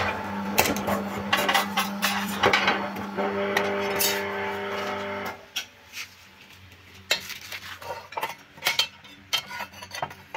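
A single-phase 220 V electric power hammer stops striking, and its motor keeps humming steadily for about five seconds before cutting off suddenly. Scattered metallic clinks and clanks run throughout as the hot forged steel and tongs are set down on steel.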